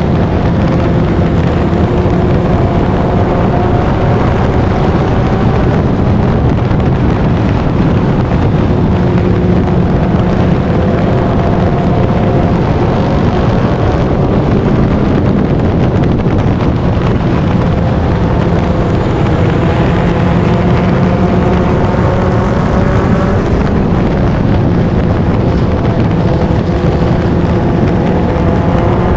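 Four-cylinder stock car engine under racing load, heard from inside the car, its note climbing and dropping again several times as it drives through the turns and straights, over steady wind and road noise.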